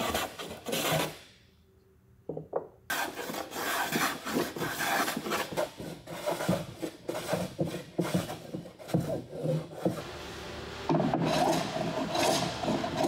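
Hand tools working wooden bulwark planks during fairing: repeated rasping strokes of wood being shaved and rubbed. There is a short near-silent break about a second and a half in, and the sound turns steadier and denser near the end.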